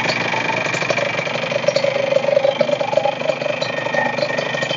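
Yamaha DT100X's single-cylinder two-stroke engine idling steadily through an aftermarket exhaust. The exhaust is very loud and harsh because the fibreglass packing in its silencer has worn out.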